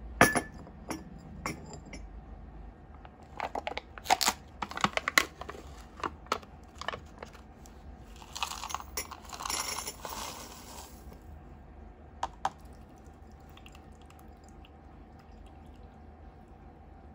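A porcelain cup set down on its saucer with a sharp clink, then a run of clicks and clinks from the spoon, cup and a small plastic jar. About eight seconds in, dry brown pieces tipped from the jar rattle into the porcelain cup for about three seconds, followed by two more clicks.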